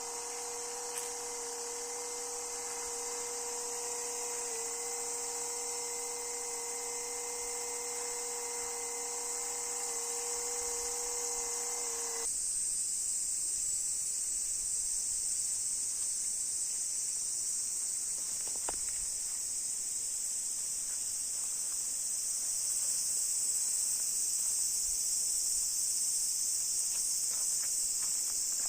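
Small electric motor of a KOSHIN GT-3S battery-powered sprayer humming steadily at one pitch, then shutting off abruptly about twelve seconds in. A dense, steady, high-pitched insect chorus runs throughout and is the loudest sound.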